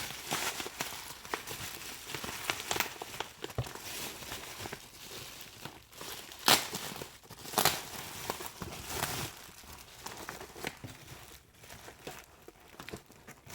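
Plastic bubble wrap crinkling and crackling as it is handled and unwrapped, in irregular bursts of rustling, with the loudest sharp crackle about six and a half seconds in.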